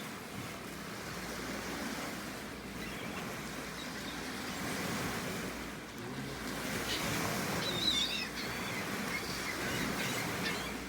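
Steady surf and wind noise at the shore, with a brief high wavering gull call about eight seconds in.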